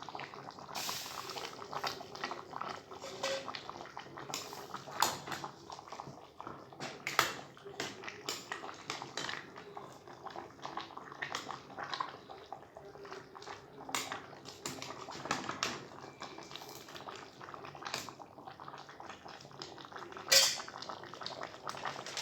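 A pot of chicken curry bubbling and popping as it cooks, a steady run of irregular small pops, with one sharp clink near the end.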